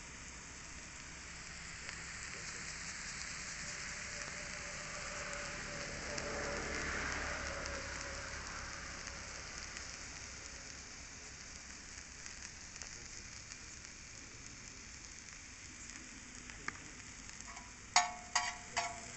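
Food frying on a large flat iron griddle, a steady crackling sizzle that swells about six to eight seconds in. Near the end a metal spatula clanks against the griddle several times in quick succession.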